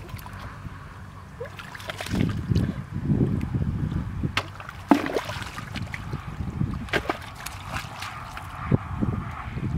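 Hands and bare feet sloshing through shallow muddy water as someone gropes in the mud for fish by hand, with a few sharper splashes.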